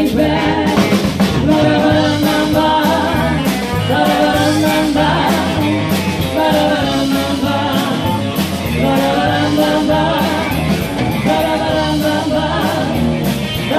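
Live rock band playing: three women's voices singing together over electric guitar and a drum kit.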